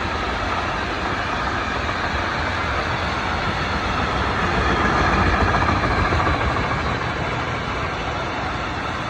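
Freight train hauled by an EU07 electric locomotive passing close by, a steady rumble of wheels on rail. It swells to its loudest about five seconds in, then eases a little.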